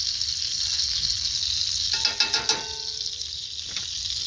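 Butter sizzling steadily in a small cast iron skillet on a gas stove, with a brief clatter of a fork against the pan about two seconds in.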